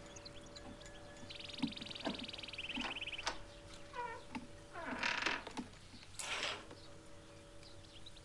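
A small songbird's rapid high trill lasting about a second and a half, dropping in pitch partway through. Then comes a short squeak and the swish and knocks of wooden glazed French windows being pulled shut.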